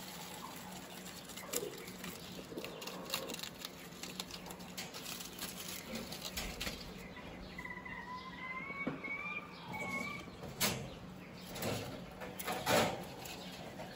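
Rabbits tugging at and chewing a dried comfrey leaf, the dry leaf rustling and crackling, with small clicks and taps of feet on the wire-mesh cage floor and a few louder rustles near the end. A faint wavering whistle sounds for a few seconds in the middle.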